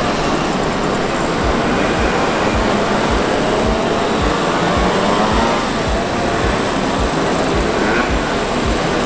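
Many two-stroke mopeds running together in a procession, their engine notes wavering up and down as they pass. A steady beat of music, about two thumps a second, runs underneath.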